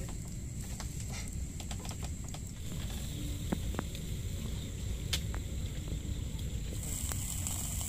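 Outdoor night ambience: insects drone steadily on one high thin note, a little louder near the end, over a low rumble, with scattered faint clicks and crackles.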